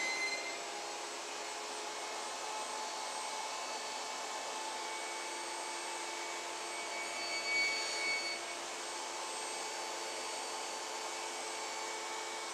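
Table saw running steadily while knotty alder boards are crosscut to length on a sled, with a short swell in the noise a little past the middle as the blade goes through the wood.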